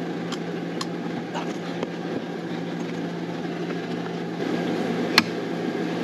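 Steady low mechanical hum, with light knocks from handling a Starlink dish and its pole mount. About five seconds in comes one sharp click as the dish's mast seats into the pole mount.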